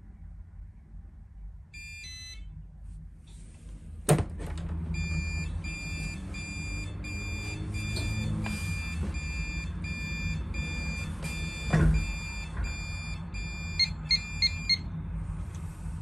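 Pyronix Euro-46 alarm keypad sounding its entry-time warning as the entry door is opened: a clunk about four seconds in, then a steady run of high beeps, roughly two a second. Near the end come four quick key beeps as a code is entered, and the warning stops.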